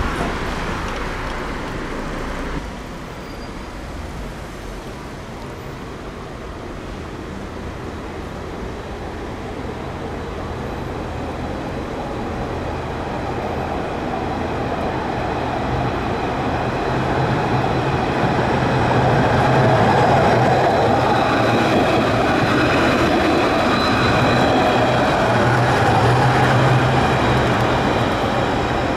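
Street traffic for the first few seconds. Then an Alstom Citadis 403 low-floor tram approaches along street track and grows steadily louder, with a steady low hum and a high whine.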